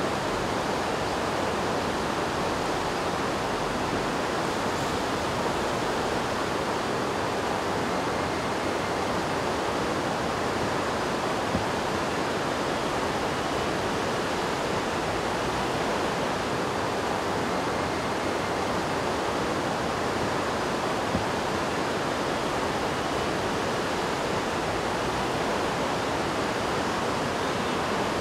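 Steady rushing of a silt-laden river in flood, an even, unbroken roar of water.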